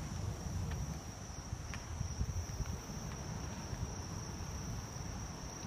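Insects, crickets or similar, shrilling steadily at one high pitch, over a low rumble and a few faint clicks.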